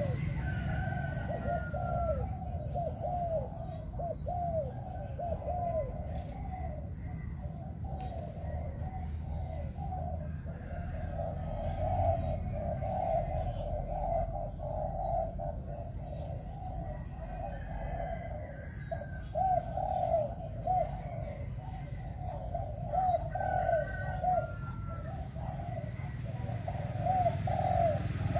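Spotted dove cooing: runs of short, quick coos in several bouts with pauses between them.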